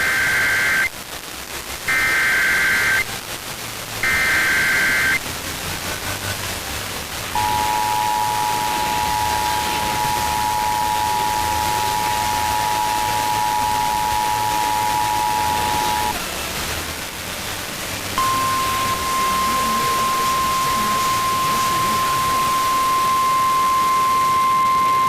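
Emergency Alert System activation: three roughly one-second bursts of warbling SAME digital header tones, then the steady two-tone EAS attention signal for about nine seconds. After a short gap, the single steady NOAA Weather Radio 1050 Hz warning alarm tone starts and is still sounding at the end, with radio hiss underneath throughout.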